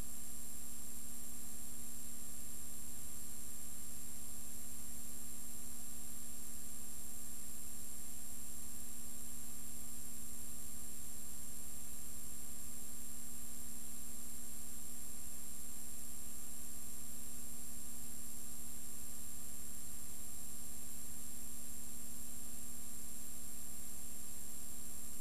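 Steady electrical hum and hiss with no other sound: the empty soundtrack of an old silent-film transfer.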